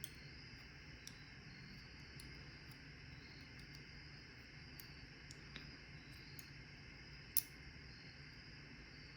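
Faint, scattered small clicks of metal padlock parts and tools being handled while a Paclock 90A-Pro is reassembled, with one sharper click about seven seconds in, over a steady low hiss.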